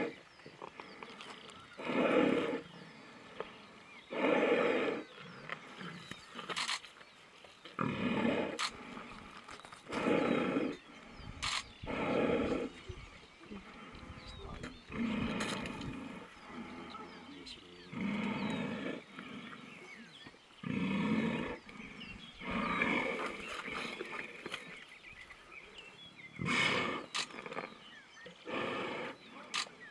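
Deep animal calls, each about a second long and coming about one every two seconds, from a lion kill where lionesses pin a dying Cape buffalo and hold its muzzle to suffocate it.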